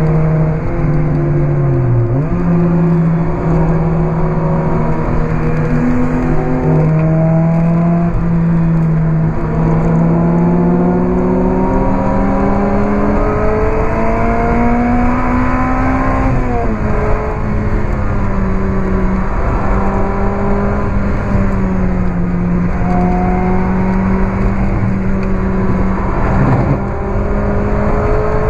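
In-car sound of a Lotus Elise 111R's Toyota 2ZZ-GE four-cylinder engine running hard at high revs through a Larini sports exhaust. The revs hold steady with a brief dip about two seconds in, climb from about ten seconds in, drop sharply at about sixteen seconds, then hold steady again.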